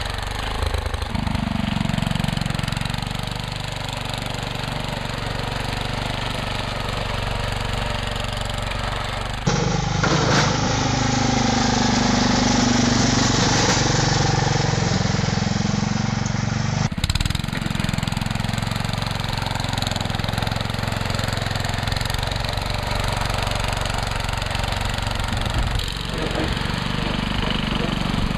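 Sears Suburban garden tractor engine running steadily while the tractor pushes snow with its front blade. The sound is louder in a middle stretch from about ten to seventeen seconds in.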